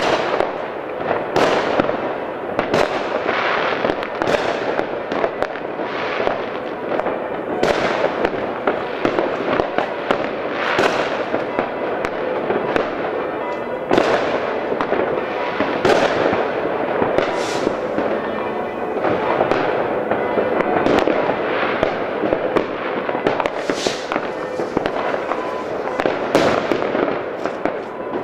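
Many fireworks and firecrackers going off across a whole town at once: a continuous crackle with sharp bangs every second or two.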